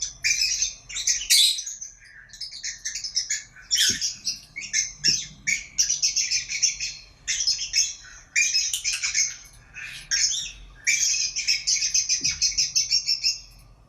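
A pair of small pet parrots chirping and chattering rapidly in high-pitched bursts, with brief pauses between runs.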